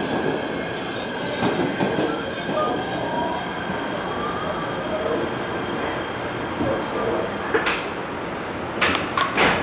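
PATH PA5 subway car running, heard from inside: a steady rumble of wheels on rail. Late on, a high wheel squeal holds for about a second and a half, followed by a quick run of sharp clicks.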